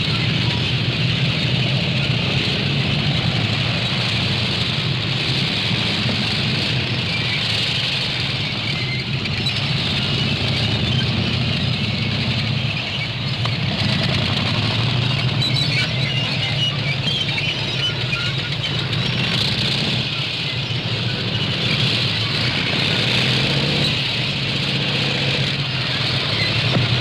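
Army tank running: a steady low engine rumble with a constant higher hiss and scattered small ticks over it, holding even throughout.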